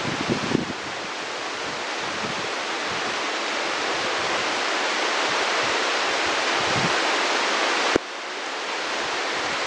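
Heavy monsoon rain falling steadily, a dense even hiss, with a few low rumbles near the start and about seven seconds in. There is a sharp click about eight seconds in; the sound drops slightly there and then builds back up.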